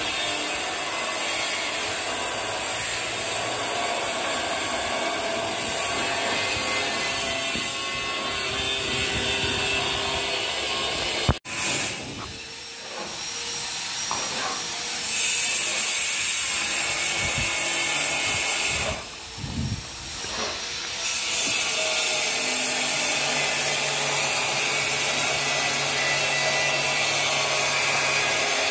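A steel plastering trowel scraping and smoothing a skim coat of finishing plaster over a concrete wall: a steady rasping, broken by a sharp click about eleven seconds in.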